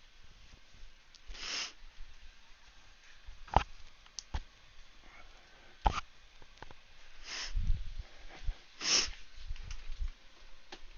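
A person sniffing three times through the nose, with a few sharp clicks in between, the loudest two about three and a half and six seconds in.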